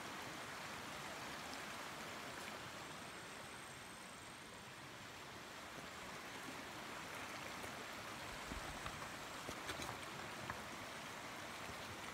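Shallow rocky stream rushing steadily, with a few faint knocks about two-thirds of the way in.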